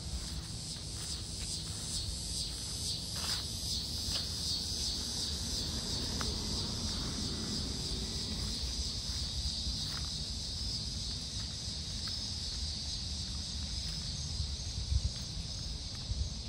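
Insect chorus: a steady high-pitched trilling that pulses rhythmically for the first few seconds and then runs on evenly, over a low steady rumble.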